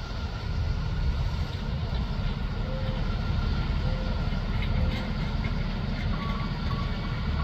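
Heavy diesel equipment engines running steadily, with an intermittent beeping near the end.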